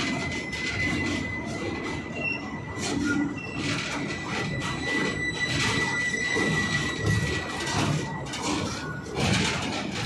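Passenger train coaches rolling slowly past, wheels clattering over the rails with a steady high-pitched squeal that stops about eight seconds in, as the train slows.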